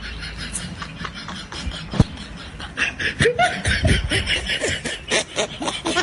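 Snickering laughter in short bursts, growing louder about halfway through.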